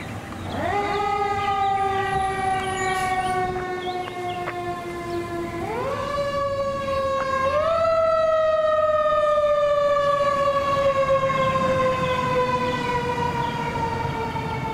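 A fire engine's siren winds up to a loud wail about half a second in and slowly sags in pitch. It is wound up higher again around six seconds and once more about two seconds later, then slowly falls away.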